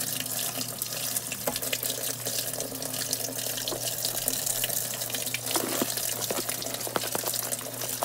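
Water running into the tub of a Giantex portable washing machine as it fills for a full cycle, a steady splashing rush with a low steady hum under it.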